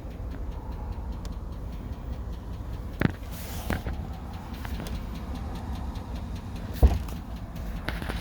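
2009 GMC Sierra 1500 Denali's 6.2 L V8 idling warm, with a light, steady engine ticking even though oil pressure is good. A sharp knock sounds about three seconds in and a louder one near seven seconds.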